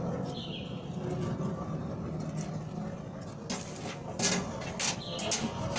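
A few sharp clicks and taps in the second half, from a digital multimeter and its test leads being handled, over a steady low hum.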